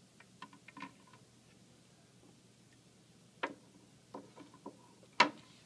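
A few light clicks and taps from a hand handling a small floating boat and a block anchor on a string in a glass aquarium. There is a sharper click about three and a half seconds in, a small flurry of ticks just after it, and the loudest click shortly before the end.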